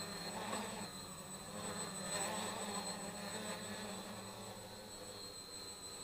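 Electric motors and propellers of a homemade 3D-printed quadcopter buzzing in flight, swelling briefly about half a second in and again around two seconds in. A faint steady high-pitched whine sits underneath.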